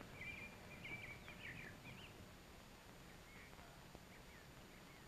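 Faint birds chirping in short repeated calls, fading out after about two seconds, leaving near silence with soundtrack hiss.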